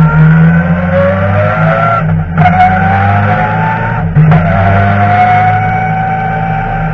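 BMW touring race car's engine heard from inside the cockpit, revving up as the car accelerates. It shifts up twice, about two and four seconds in: each time the pitch drops and then climbs again.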